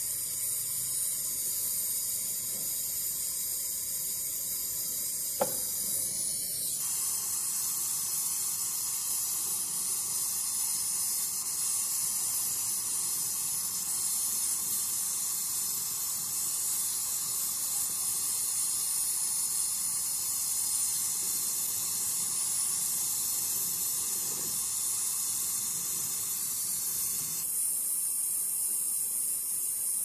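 Gas torch flame hissing steadily while it heats a brazed copper refrigerant pipe joint on a refrigerator compressor to unsolder it. There is a single click about five seconds in, and the hiss shifts slightly in tone about six seconds in and again near the end.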